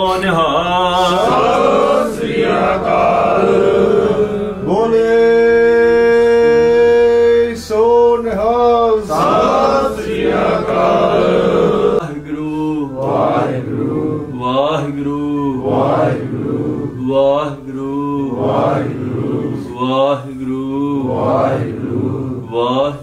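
A man's voice chanting a Sikh devotional recitation, with long drawn-out sung notes in the first half. About halfway through it changes to short phrases repeated in a steady rhythm, a little over one a second.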